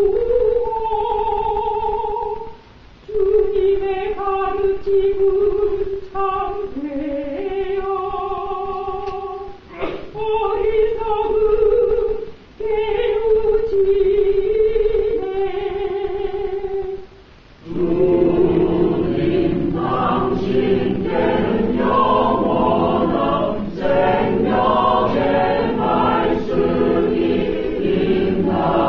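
A female cantor sings a verse of a responsorial psalm alone, in phrases with short breaks between them; about two-thirds of the way through, a mixed church choir comes in with the refrain.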